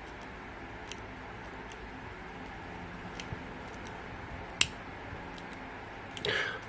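A few sharp clicks and light handling taps, one louder click a little past the middle, from the worn on/off push switch of a Henry vacuum cleaner being worked by hand; the motor is not running.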